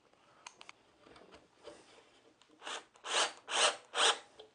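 Screws being driven into pre-drilled holes in the wooden stool, heard as a few faint clicks and then four short grinding bursts in quick succession.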